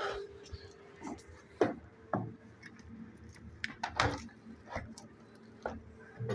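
Scattered light knocks and clicks, about eight of them at uneven intervals, over a faint steady hum.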